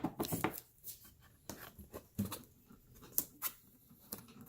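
Scattered light clicks and rustles of painter's tape and small wooden module parts being handled.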